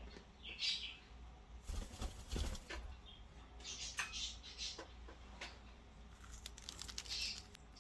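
A pet bird flapping its wings in a few brief flurries, among scattered light clicks and scuffs.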